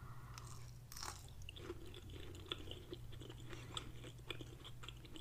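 Close-miked chewing of a mouthful of breaded, cheese-filled fried fish fillet: soft, wet mouth clicks, many small ones at an irregular pace.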